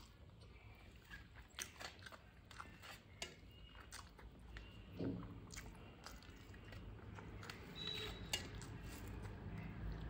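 Close-up chewing of a mouthful of rice and fish eaten by hand, with scattered small wet clicks as fingers mix rice on a steel plate.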